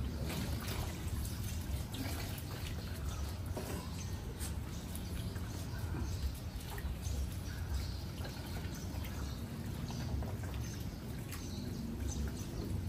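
Garden hose running water over a puppy into a plastic basin: a steady trickle with many small splashes and drips.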